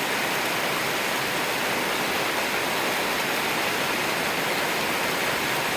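Rain falling steadily on the forest trees: an even, unbroken hiss.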